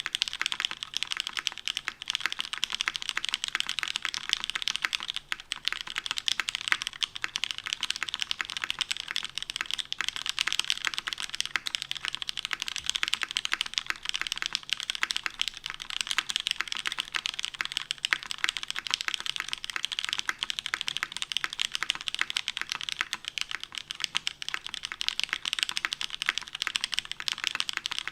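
Fast, continuous typing on a custom mechanical keyboard with lubed Cherry MX Black linear switches on an aluminum plate and DCS-profile keycaps, giving a dense stream of key clacks with a brief pause about five seconds in.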